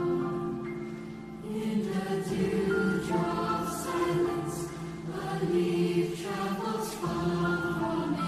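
Mixed youth choir singing in several voice parts, holding chords, with a few crisp 's' consonants cutting through; the sound swells after a softer moment about a second and a half in.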